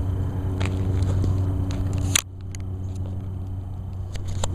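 Steady low mechanical hum, like a running motor or engine, with a sharp click about two seconds in, after which the hum continues more quietly.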